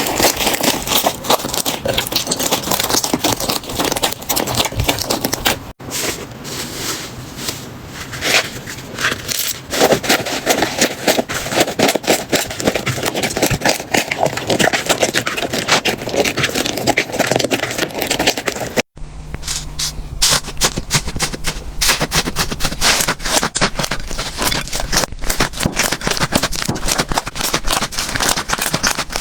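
Slime being squeezed and pressed by hand, giving dense crackling and popping clicks. Abrupt cuts come about six and nineteen seconds in, and a low steady hum lies under the last part.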